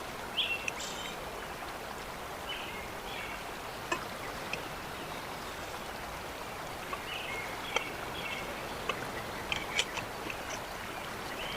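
Steady rush of flowing river water, with small birds chirping now and then and a few light clicks.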